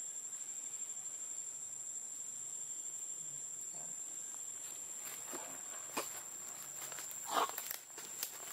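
Steady high-pitched insect drone from the forest, with a few short clicks in the second half and a brief louder noise about seven seconds in.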